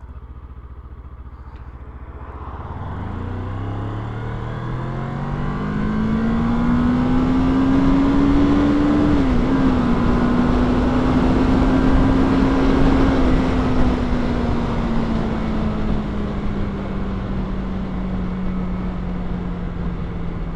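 Kawasaki ER-6f's parallel-twin engine pulling away and accelerating, its pitch climbing, with a quick dip about nine seconds in as it shifts up, then holding and slowly easing down. Wind noise on the helmet-mounted microphone rises with speed.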